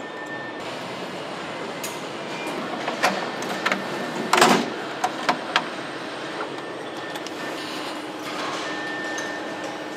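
Car assembly-line factory ambience: a steady machinery din and hum, with a few sharp metallic clanks and a short, louder burst about four seconds in. A faint high beep-like tone sounds briefly at the start and again near the end.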